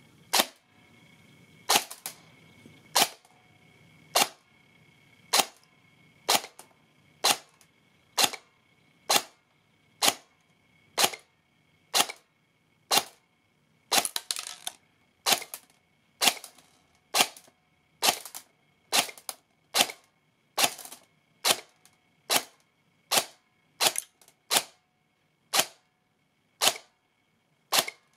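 Airsoft electric gun (AEG) firing single shots through a chronograph, a sharp piston-and-gearbox crack about once a second, each shot separate.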